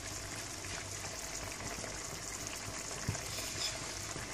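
Mussels in tomato sauce simmering in a pot on a gas hob: a steady, gentle bubbling and hiss.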